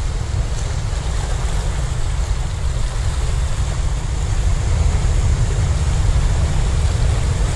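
Wind buffeting the microphone in a steady low rumble, over small waves washing against shore rocks.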